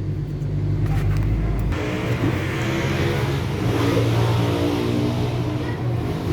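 Nissan Calibre engine running steadily, then rising in speed about two seconds in.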